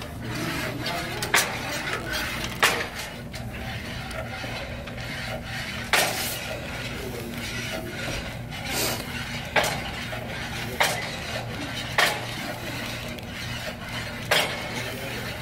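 Weight stack of a pec-deck chest fly machine clanking as it is worked through reps: about eight sharp metallic knocks, one every one to three seconds, over a steady low hum.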